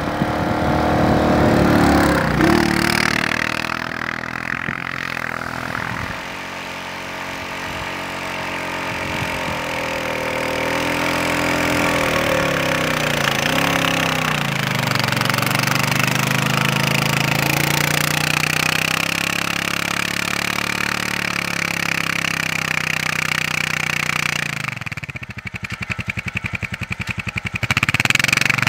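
Honda Rubicon 520 ATV's single-cylinder engine pulling through deep snow on Camso X4S rubber tracks, its pitch rising and falling with the throttle. Near the end it drops for a few seconds to an even, pulsing idle, then picks up again.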